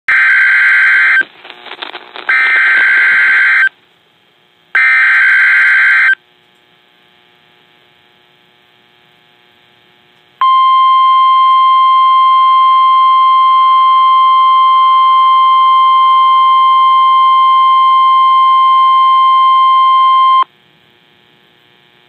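Emergency Alert System signal for a severe thunderstorm warning: three short bursts of screeching digital header data, about a second apart, then after a pause of a few seconds a steady, single-pitched attention tone held for about ten seconds.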